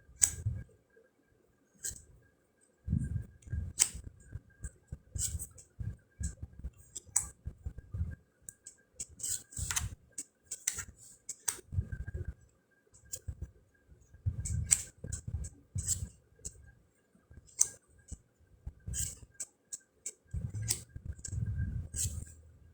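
Round cardstock fortune cards being flipped through and laid down one after another: an irregular string of light clicks and snaps, roughly one or two a second, with soft thuds of cards landing.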